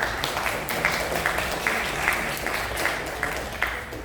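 A small audience applauding, many hands clapping at once, thinning out near the end.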